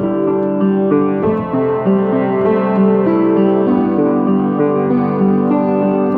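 Upright piano playing a slow melody of held notes and chords, the notes changing every half second or so. It is played on the only keys of an out-of-tune piano that are still in tune.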